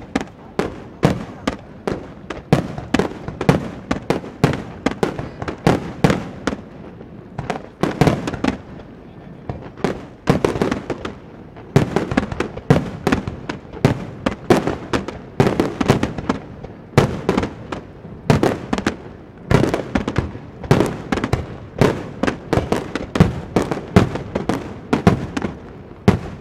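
A rapid-fire fireworks barrage: shells bursting in quick succession, several bangs a second with crackling between them. The barrage ends near the end.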